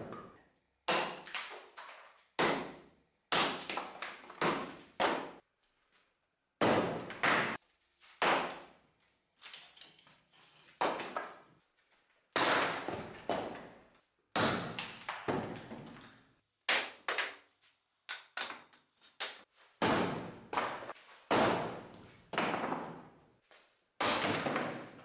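Splitting axe striking a log on a chopping block: a long series of sharp thuds, one every second or two, as the log is split.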